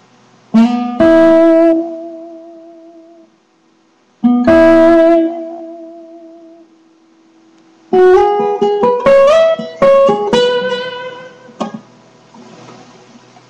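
Acoustic guitar played solo: two chords struck and left to ring out for a couple of seconds each, then a quicker run of plucked notes and chords that dies away near the end.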